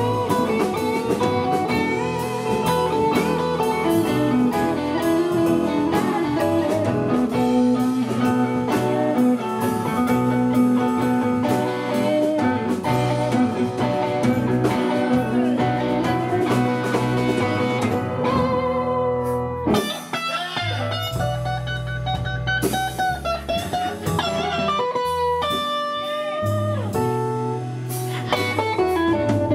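Live blues band playing an instrumental stretch with no singing, a guitar leading with held and bending notes.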